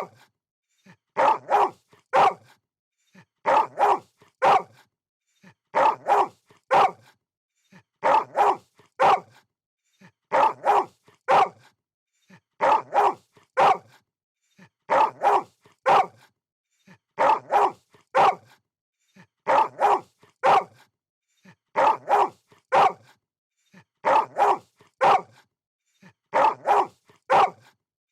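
A dog barking in short groups of two or three barks, the same group repeating about every two and a half seconds as a looped sound effect.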